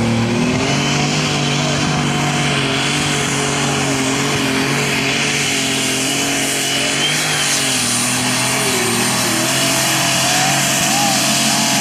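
Super stock pulling tractor's turbocharged diesel engine running flat out under full load as it pulls the sled. The engine note stays steady, with a high whine over it.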